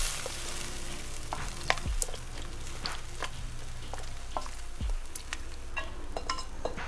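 Thin beef-and-kai-lan gravy boiling and sizzling in a wok: a steady hiss with scattered small pops and ticks, and a few dull low thumps.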